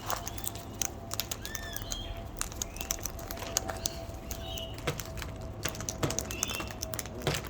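Birds feeding close by: frequent sharp clicks and taps, with short arching chirps now and then and a faint steady tone underneath.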